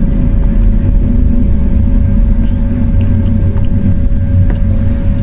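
Steady low rumble and hum with a thin constant tone, with a few faint small clicks of laptop parts and tools being handled during disassembly.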